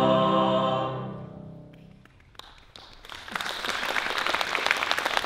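A choir's final held chord fades away over the first two seconds into the hall's reverberation. Then, about two and a half seconds in, the audience begins applauding, and the clapping quickly fills in and continues.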